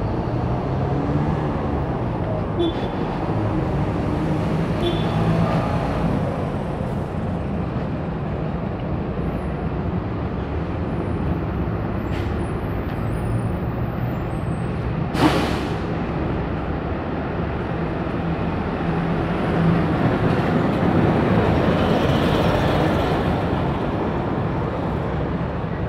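Street traffic: a steady rumble of passing vehicles, swelling between about twenty and twenty-four seconds in, with a single sharp click about fifteen seconds in.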